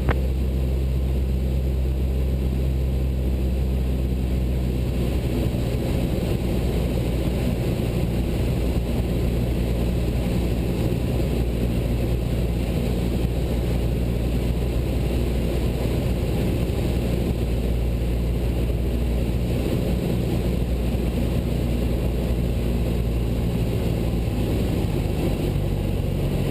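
Cessna 172 Skyhawk's four-cylinder Lycoming engine and propeller droning steadily at a constant power setting, heard from the cockpit.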